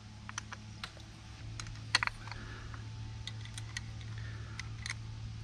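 Scattered light clicks and taps of small metal parts being handled as a SPID RAU rotator's worm-drive motor housing and its greasy gear plate are fitted back together, with one sharper click about two seconds in, over a steady low hum.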